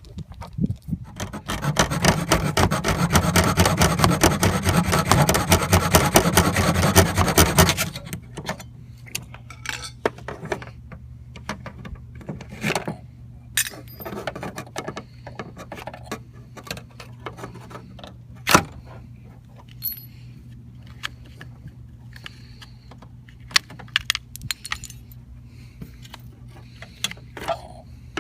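Hands and tools working on a car door's exterior handle assembly: a loud rasping rattle for about seven seconds, then scattered metallic clicks, taps and scrapes as parts are handled and pried.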